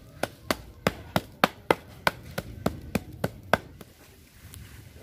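A quick, even series of about twelve sharp knocks, roughly three a second, like repeated strikes with a hand tool, stopping about three and a half seconds in.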